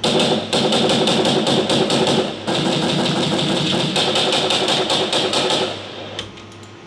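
Several machine-gun sound effects layered and played back together: continuous rapid automatic fire with overlapping bursts. There is a short break about two and a half seconds in, and the firing stops about a second before the end, tailing off briefly.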